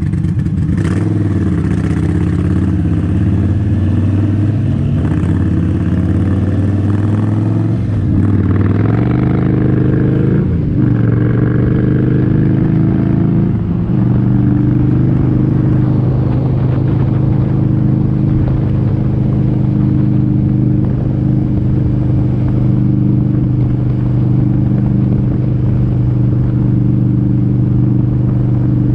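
Indian Springfield Dark Horse motorcycle's Thunder Stroke 111 V-twin engine under way, its pitch rising and then dropping at about three gear changes in the first half, then holding steady at a cruise.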